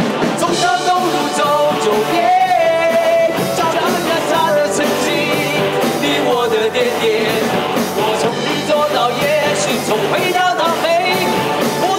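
Men singing a Mandopop rock song together into microphones, backed by acoustic guitars and a band.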